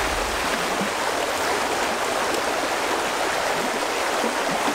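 Clear, shallow stream running over a stony riffle: a steady rush of water.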